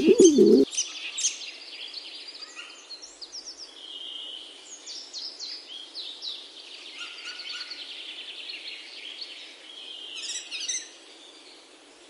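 Small songbirds chirping and whistling: many short high calls overlapping, with a few rapid trills, one of them a little before the end. A brief low cooing note sounds right at the start before it cuts away.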